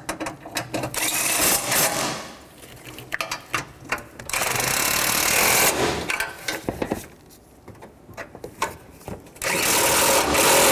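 Cordless power tool running in three spurts of one to two seconds each, driving bolts down tight on the engine-bay bracket.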